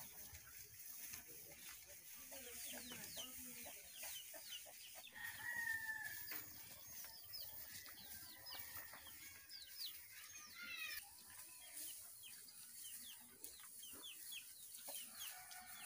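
Faint bird calls: many short chirps throughout, with a longer held call about five seconds in.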